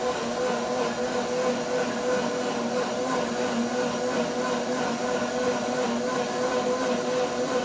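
WantJoin commercial blender running on its juice program inside its closed sound-enclosure cover, blending watermelon and strawberries into juice. The motor gives a steady whir at a constant pitch.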